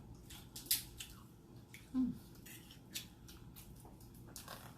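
Close-up eating sounds: scattered sharp clicks and cracks of food being handled and chewed, a few each second or so.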